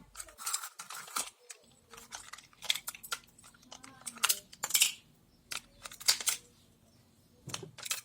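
A string of irregular sharp clicks and clinks of small hard objects, with gaps of up to a second between them.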